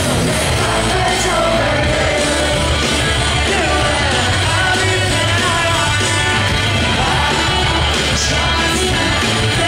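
A live rock band playing loud: electric guitars and drums with a singer.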